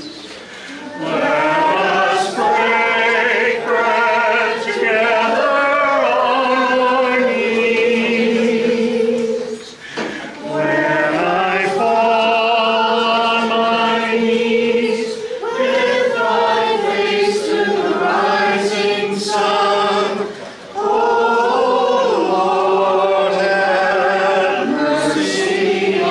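Congregation singing a communion hymn together in long phrases, with short breaks between phrases about ten seconds apart.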